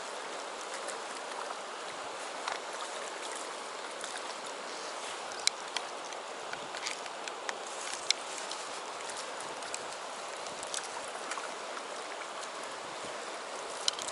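Shallow river flowing steadily over stones, with scattered short ticks and small splashes as a hooked trout thrashes at the surface.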